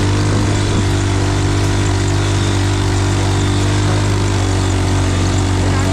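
An engine running steadily at an unchanging speed, giving a constant low hum.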